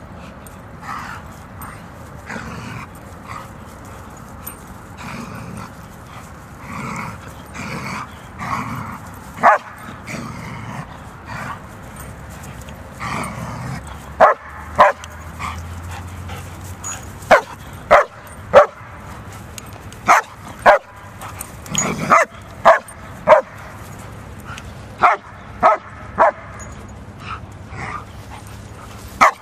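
German Shepherd dogs at play: softer whines and yips in the first half, then from about halfway a run of loud, sharp barks, one or two at a time.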